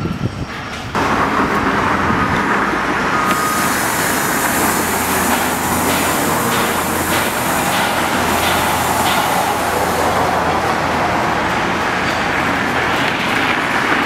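Steady roar of motor traffic, starting about a second in, with a low engine hum underneath through the middle.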